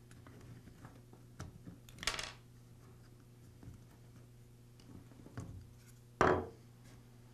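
Plastic clamshell housing of a Dremel 395 Moto-Tool being split apart by hand: small clicks and rubbing of the plastic, a short scraping crack about two seconds in, and a louder snap and clatter just after six seconds as one half comes free.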